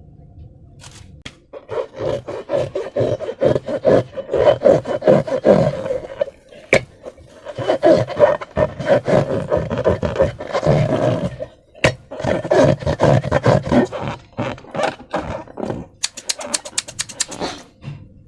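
Slime being squeezed and worked by hand against balloon rubber, squelching and crackling in bursts with short pauses. Near the end comes a quick run of sharp clicks.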